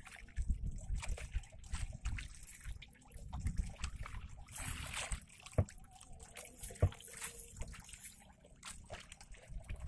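Water sloshing and lapping against the hull of a small wooden boat rocking on the swell, over an irregular low rumble. Two sharp knocks come about halfway through, a little over a second apart.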